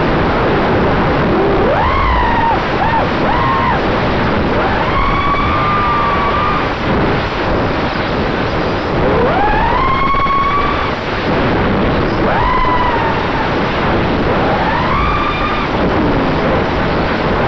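Onboard sound of an FPV quadcopter's Emax RS2205 2300kv brushless motors and propellers in flight, heard through the action camera's own mic. A whine sweeps up and falls back again and again with the throttle punches, over a constant heavy rush of wind and prop noise.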